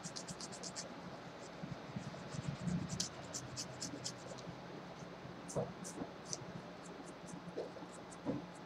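Nail file scraping across a fingernail in quick runs of short strokes, with brief pauses between runs.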